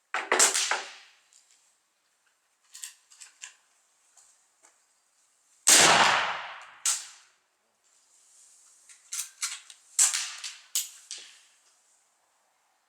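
Black-powder gunfire: a loud close shot from a .44 cap-and-ball revolver about six seconds in, with a long ringing decay and a second crack a second later, plus sharper cracks near the start and a cluster of them around ten seconds.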